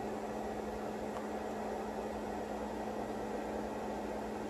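Steady fan whir with an even low hum from power electronics running under a load of about 900 watts.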